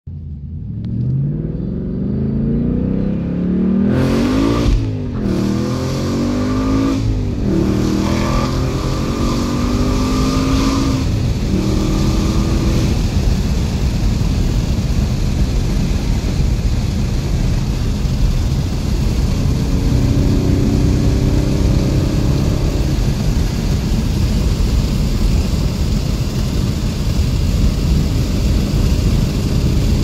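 Roush Jackhammer Mustang's supercharged V8 heard from inside the cabin, accelerating hard with a rising engine note. It breaks briefly at two quick upshifts about five and seven seconds in, pulls up again, then settles into steady cruising with road and tyre noise.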